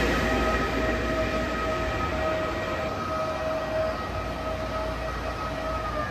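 Electric locomotive and double-deck coaches moving away along the platform: a steady high whine over the rumble of the wheels, both fading as the train draws off.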